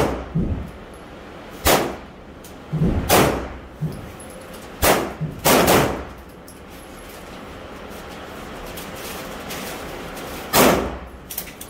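About six handgun shots fired at an irregular pace, each one echoing briefly in the enclosed indoor range, with a few fainter shots or clinks in between.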